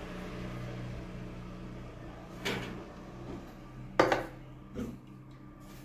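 Three short knocks or clatters of objects being handled, the second, about four seconds in, the loudest, over a steady low hum.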